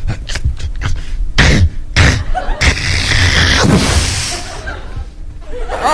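A man making sound effects with his voice into a microphone: a quick run of mouth clicks and pops, two louder bursts, then a long hissing whoosh that fades away.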